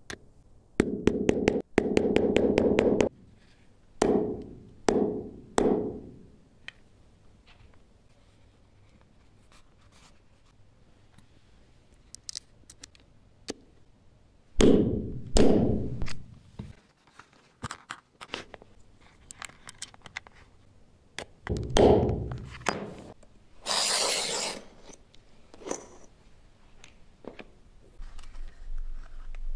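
Blows struck on a snap-setting punch, setting metal snap buttons into leather on a hard block. A rapid run of strikes comes first. Heavier single blows follow in small groups, with pauses between.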